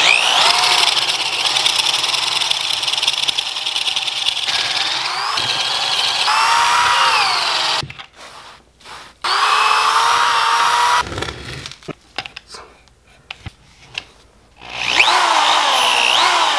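Corded electric drill driving a 1¼-inch spade bit into a log, the motor's whine dipping and rising in pitch as the bit bites. It runs for about eight seconds, stops briefly, runs again for a couple of seconds, then starts once more near the end. It is boring the holes of a rocket log stove.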